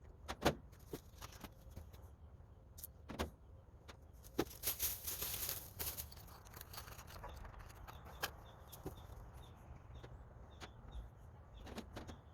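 Handling noise: scattered clicks and light metallic clatter, loudest about half a second in, with a brief rustle around the middle.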